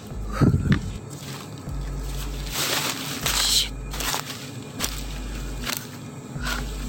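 Footsteps crunching through dry bamboo leaf litter, with twigs and leaves crackling underfoot. There is a louder rustling crunch about three seconds in.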